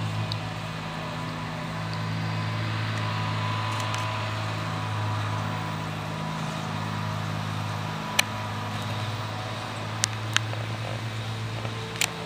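Steady low motor hum, with a few faint sharp clicks in the second half.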